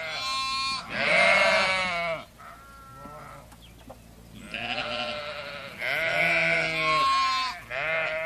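Voices held in long, wavering calls, several in a row with short breaks between them.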